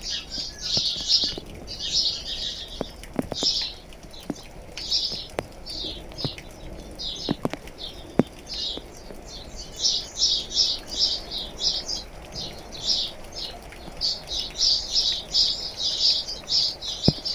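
Small birds chirping in rapid, clustered bursts of high-pitched calls, busiest near the start and again from about ten seconds in, with scattered sharp drips of rain tapping.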